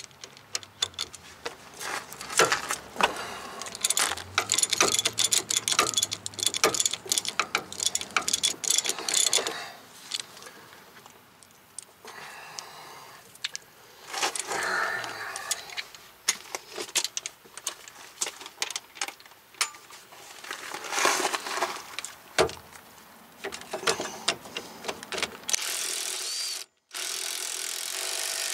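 Hand ratchet and socket clicking on a rusty 17 mm brake caliper bolt as it is worked loose, with metal tool clinks. Near the end a cordless impact wrench runs in two short spells, spinning the bolt out.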